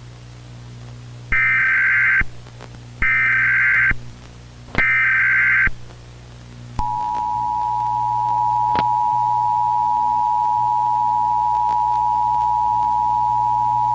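Emergency Alert System broadcast opening: three short bursts of warbling digital data tones, about a second each (the SAME header). About seven seconds in, the steady two-tone EAS attention signal starts and holds, over a faint low hum.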